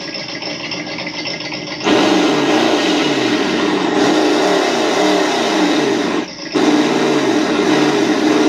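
Team Associated ESS-One RC engine sound module playing its built-in default engine sound through its speaker: idling, then revved hard with the throttle from about two seconds in, the pitch rising and falling repeatedly, dropping back for a moment a little after six seconds in before revving again.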